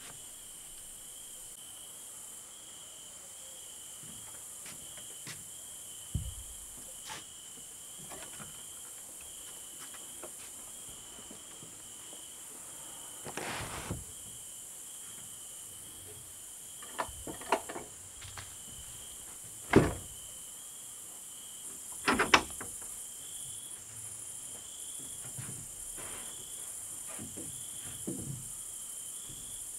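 Crickets chirping: a steady high trill over a pulsing lower chirp. Scattered short knocks and creaks sound over it, the loudest two about two-thirds of the way through.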